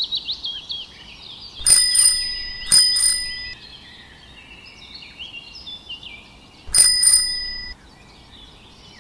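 A bicycle bell rung in quick double rings, three times, each ring hanging on for about a second. Birdsong runs underneath: a fast descending trill at the start, then scattered chirps.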